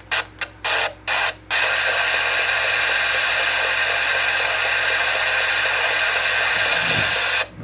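Radio receiver static: a run of quick crackling bursts, then a steady hiss lasting about six seconds that cuts off abruptly near the end.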